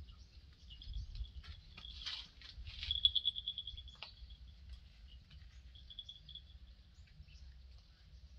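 A small bird trilling: short runs of rapid high notes, repeated a few times, loudest about three seconds in. Faint scattered rustles and clicks come between them.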